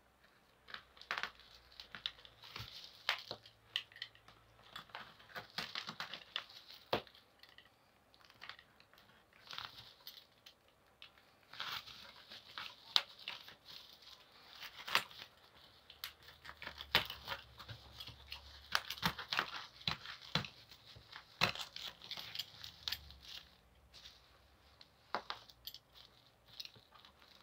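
Plastic parcel wrapping, a black plastic bag covered in clear plastic wrap, being handled and torn open by hand: irregular crinkling and rustling with sharp snaps and tearing, starting about a second in.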